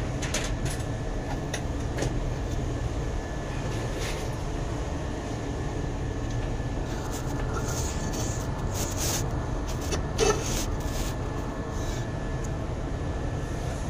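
A machine running steadily: a low rumble with a thin, steady high whine over it, and a few light clicks and taps.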